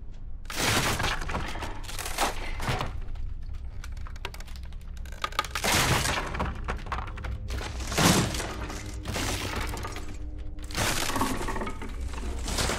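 Wooden floorboards being broken and torn up: a series of heavy cracks and splintering crashes, about eight blows, over a steady low drone.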